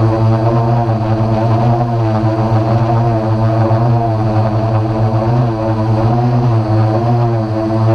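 DJI Phantom quadcopter's propellers and motors buzzing loudly and steadily at close range, the pitch wavering gently as the motors adjust speed in flight.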